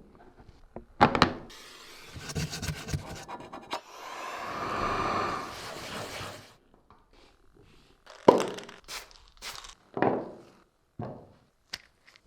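Hand work on the parts of an old DeWalt drill: knocks and rubbing, scraping, then a steady hiss lasting about two and a half seconds, followed after a pause by several sharp clicks and taps.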